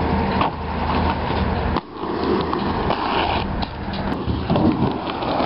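Inline skate wheels rolling over concrete, a steady rolling rumble with a few sharp clacks, broken briefly about two seconds in.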